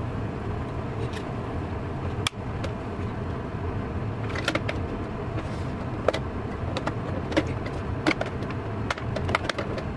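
Hard plastic parts of a Combi microwave sterilizer case clicking and knocking as its rack and lid are handled and fitted together. The clicks are scattered, with more of them from about four seconds in, over a steady low hum.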